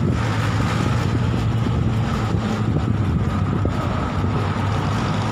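Steady road traffic noise: vehicles running along the street beside the sidewalk, with a low engine hum underneath.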